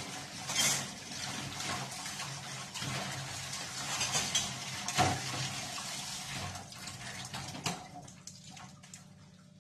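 Kitchen tap running into a sink while dishes are washed by hand, with a few sharp clinks of dishes knocking together, the loudest about five seconds in. The running water dies away near the end.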